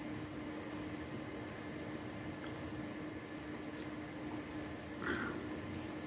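Faint light clicks of unakite stone chip beads knocking together as they are worked along beading wire by hand, over a steady low hum.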